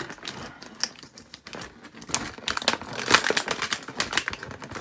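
Hands working plastic toy packaging: irregular clicks, snaps and crinkling of clear plastic as an action figure's weapon is pulled free from its tray, busiest in the second half.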